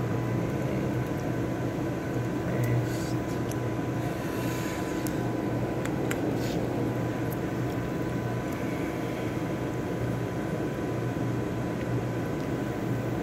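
Steady machine hum of room ventilation and lab equipment, with a faint constant high tone. A few keyboard key clicks come around the middle.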